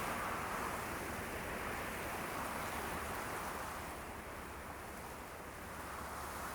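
A steady rush of water, an even hiss and roar without distinct splashes, easing slightly partway through.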